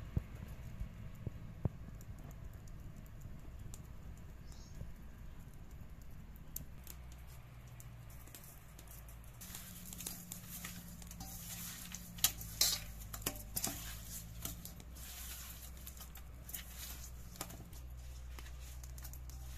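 Hands rubbing turmeric into raw pabda fish in a stainless steel bowl: soft wet handling with scattered light clicks and ticks against the metal, busiest and sharpest about ten to fourteen seconds in.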